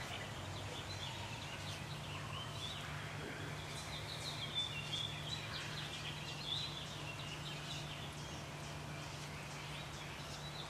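Birds chirping and twittering in the background over a faint, steady low hum, with a couple of soft taps about halfway through.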